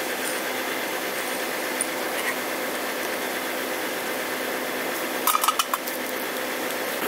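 Steady rushing of a coal fire heating a crucible of melting aluminium, with a faint hum underneath. A few sharp clinks come quickly one after another a little past five seconds in.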